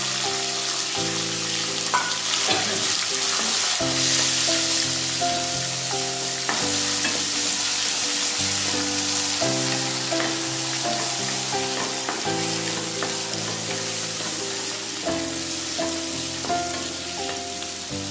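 Chopped green tomatoes and onions sizzling in hot oil in a nonstick kadai, stirred now and then with a wooden spatula that scrapes the pan. Background music with sustained chords plays over the frying.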